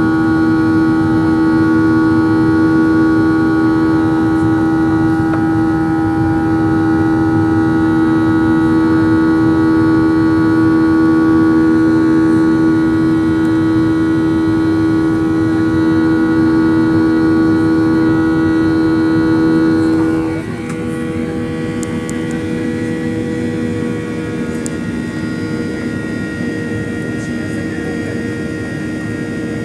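Cabin noise of a Boeing 737-800 climbing after takeoff: a steady drone from its CFM56-7B turbofans, with several steady whining tones over a rushing hiss. About two-thirds of the way through, the sound drops a little and the tones shift in pitch.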